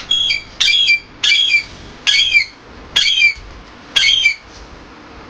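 Parrot calling in a series of six short squawks, each under half a second, about one a second, stopping a little after four seconds in.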